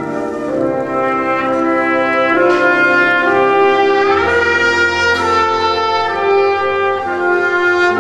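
Slow orchestral music of long held chords, brass to the fore, with a deep bass note coming in about halfway.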